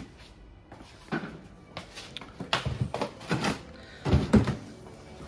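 Soft-drink bottles and cans being packed into a plastic tote: a string of irregular knocks and clunks, loudest about four seconds in.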